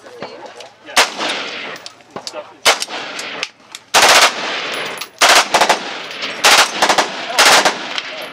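Automatic-weapon gunfire on an outdoor firing line: two single shots, then a string of short full-auto bursts from about four seconds in.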